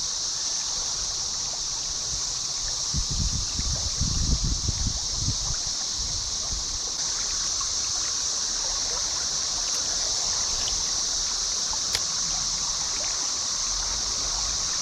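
Creek water running with a steady, high-pitched drone of a cicada chorus over it. A few low rumbles come about three to five seconds in.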